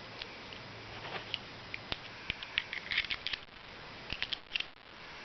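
Small metal clicks and taps of a miniature Desert Eagle model pistol's tiny cartridges being loaded into its magazine, in two quick clusters of clicks a little over a second apart.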